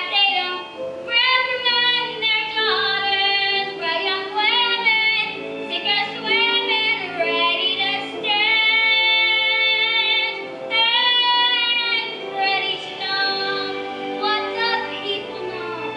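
A young girl singing, with long held notes about halfway through.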